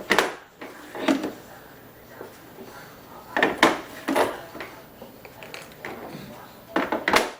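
Hard objects being handled, in four short bursts of clattering knocks.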